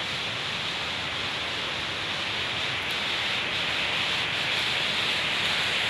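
Steady rush of water from a small waterfall and stream, growing slightly louder near the end.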